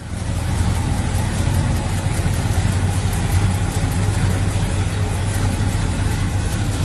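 Chevrolet Chevelle SS V8 engine idling steadily with a deep, even tone.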